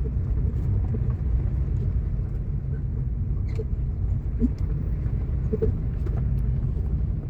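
Car driving on a sandy, bumpy dirt road: a steady low rumble of engine and tyres, with a few light knocks and rattles.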